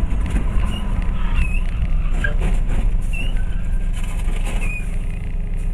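Dashcam audio of highway driving: a steady low road-and-engine rumble heard from inside the car, with a few brief high chirps and a cluster of sharp knocks about two to three seconds in as cars collide ahead.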